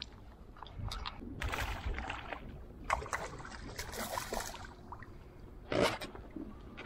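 Water splashing and sloshing in several short bursts as a hooked pickerel is brought to the side of a small boat and lifted from the lake by hand; the loudest splash comes near the end.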